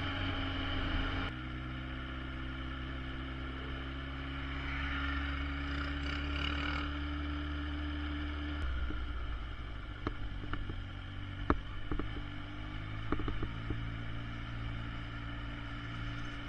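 Motorcycle engine running steadily while riding, heard from a camera mounted on the bike. The engine note changes abruptly twice, and a few sharp clicks and knocks come in the second half.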